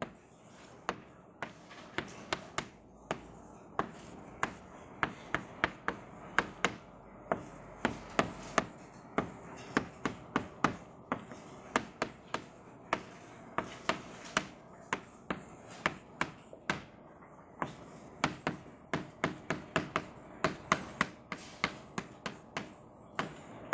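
Chalk tapping and scraping on a blackboard as equations are written out: an irregular run of sharp taps, a few a second, broken by short pauses.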